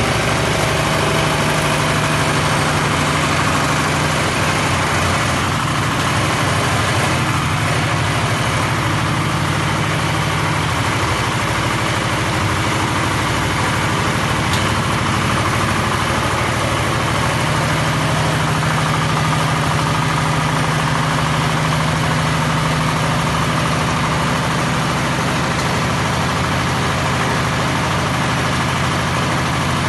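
Engine of a small rubber-tracked crawler dumper running steadily while the machine drives and tips its cargo bed, its note shifting a little in the middle.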